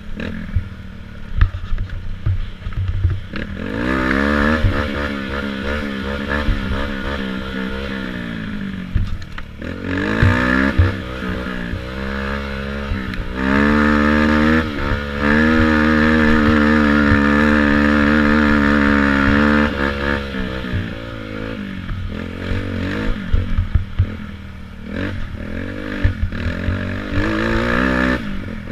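Youth racing quad's engine revving up and down with quick throttle blips over a rough trail, along with rattling knocks. About halfway through it climbs to high revs and holds them steadily for several seconds at full throttle, then falls back to short bursts of throttle.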